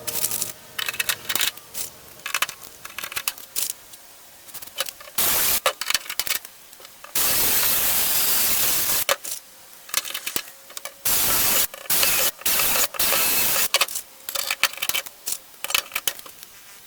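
Repeated bursts of loud hissing, the longest lasting about two seconds, broken up by many sharp clicks and cracks.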